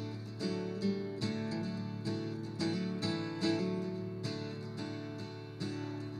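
Background music played on acoustic guitar, plucked and strummed notes.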